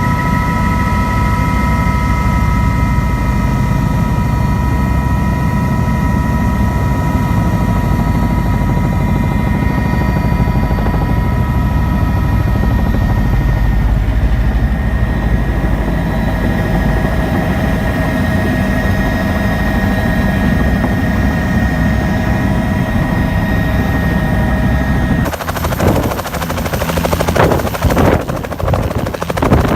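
Helicopter in flight: a steady low rumble from the engine and rotor with a high turbine whine over it. About 25 seconds in, the sound changes abruptly to an uneven, choppy noise.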